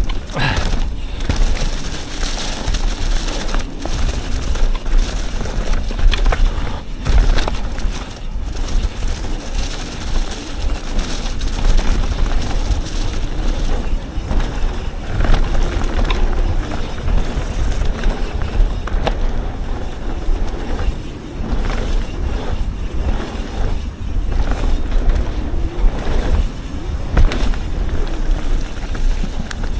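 Yeti SB 150 29er mountain bike ridden fast down a rough dirt trail: continuous rushing noise with a strong low rumble, broken by frequent knocks and rattles from the bike over bumps.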